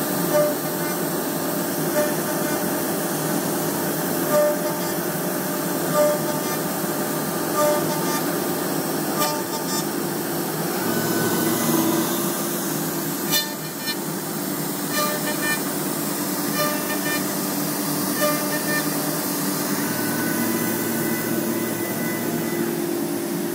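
MultiCam CNC router spindle running with a dovetail bit, cutting dovetail joints into panel stock: a steady machine whine with a short louder cut about every one and a half seconds.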